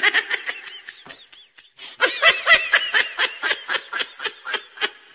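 Canned laughter sound effect: rapid ha-ha-ha laughing pulses, about six to seven a second. It comes in two bouts, the second starting about two seconds in, louder at first and fading out near the end.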